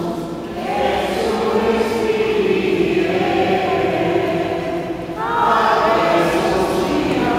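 A group of voices singing a slow hymn together, holding long notes, with a new phrase beginning about half a second in and another about five seconds in.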